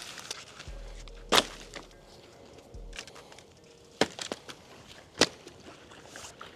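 Dry firewood sticks cracking sharply as they are broken up: three loud snaps with a few fainter ones between.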